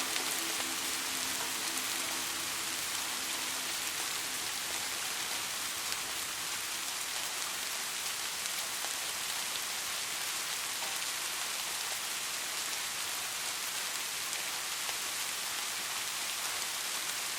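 Steady rain falling, an even, dense hiss with no let-up.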